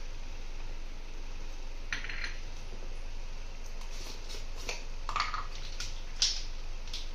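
Light clinks and clicks of kitchen utensils being handled on a counter: measuring spoons and small containers knocking together. One click comes about two seconds in, then a string of them over the next four seconds, the last the loudest.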